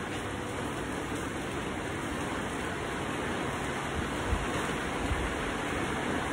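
Steady rushing background noise with no words over it, and two soft low thumps about four and five seconds in.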